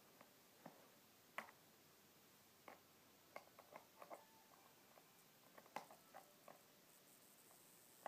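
Faint, scattered clicks and taps of plastic take-apart toy car parts and screws being handled and fitted, some in quick little clusters, over a quiet room.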